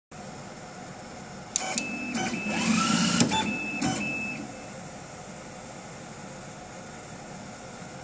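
HC-4606 cable stripping machine running a stripping cycle on a fibre cable: several sharp clicks, a motor whine rising in pitch and a hiss, lasting about three seconds, then only a steady low hum.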